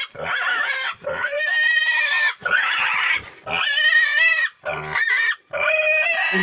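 Piglet squealing over and over in long, high calls about a second each, the distress of a piglet just separated from its mother.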